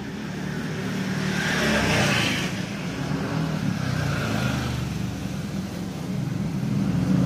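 A motor vehicle engine running steadily, with a louder rush of noise about two seconds in, like a vehicle going past.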